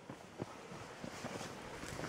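Faint footsteps on a dirt and gravel trail, with a sharper step about half a second in, growing louder near the end.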